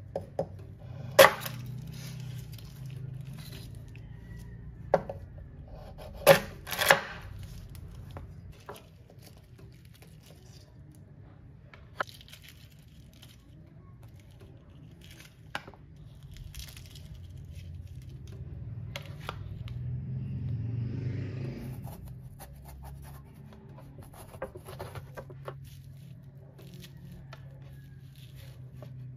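A kitchen knife blade tapping and cracking the shells of salted eggs on a wooden board: several sharp knocks in the first seven seconds, the first the loudest. Quieter crackling and scraping follows as the shells are peeled off and a spoon scrapes the seeds out of a halved bitter gourd.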